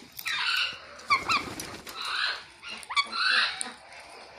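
Ringneck parakeet calling: a run of about four harsh squawks, with quick chirps that slide up and down in pitch between them.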